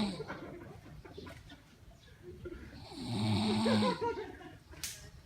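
Snoring in sleep: one drawn-out snore tails off just after the start, and a second long snore comes about three seconds in, each a steady droning tone that rises and falls slightly in pitch. A short click sounds near the end.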